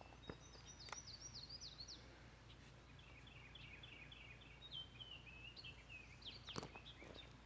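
Near silence with faint birdsong: a quick run of falling chirps, then a longer string of repeated notes. One small click near the end.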